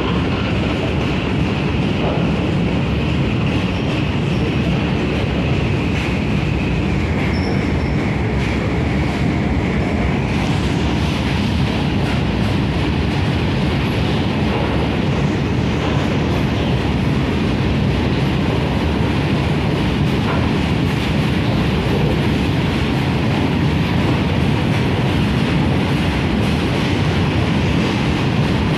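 Empty BOXN open wagons of an Indian Railways freight train rolling past: a steady rumble of steel wheels on rail, with clickety-clack over the rail joints. A high wheel squeal runs through the first ten seconds or so, sinking a little in pitch before it stops.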